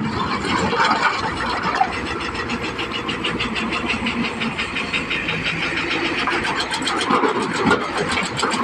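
Komatsu excavator's diesel engine running steadily under work.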